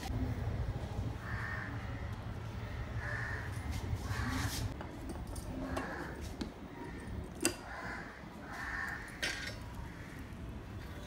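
Crows cawing, about half a dozen harsh calls spread across the seconds, with two sharp knocks of bowls or bottles set down on a glass table.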